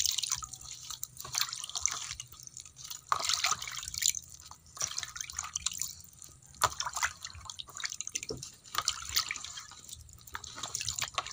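Water splashing in a plastic basin as a hand swishes shredded cabbage around to wash it, in uneven splashes.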